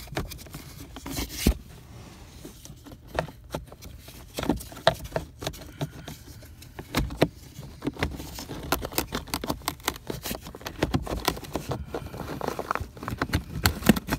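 Handling noise from a car's cabin air filter and its plastic housing: scattered clicks, taps and scrapes, which come more often in the second half.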